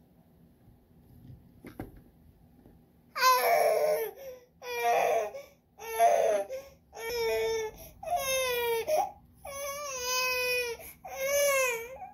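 A baby crying: seven cries of about a second each at a steady pace, beginning about three seconds in.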